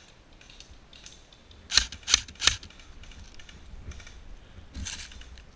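Airsoft gun firing: three sharp shots about a third of a second apart, about two seconds in, then a softer cluster of clicks near the end.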